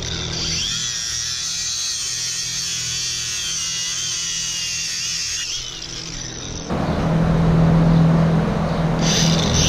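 DeWalt cordless angle grinder running and grinding the heads off the screws that hold the cow stall mats to the concrete, its high whine wavering in pitch as the disc bites. About two-thirds of the way in the sound changes abruptly to a louder, rougher grind with a low hum.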